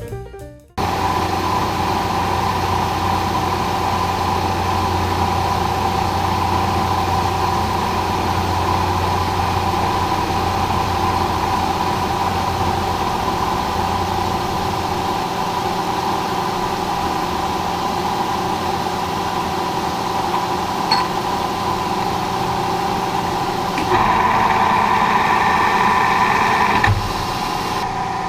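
Milling machine running steadily through a cut on a steel vise jaw, with a steady whine and low hum. About 24 seconds in it grows louder and higher for about three seconds, then drops back.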